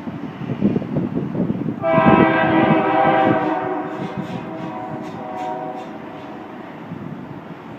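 Freight diesel locomotive air horn sounding one long chord about two seconds in, loudest at first and fading over about four seconds, over the rumble of the train.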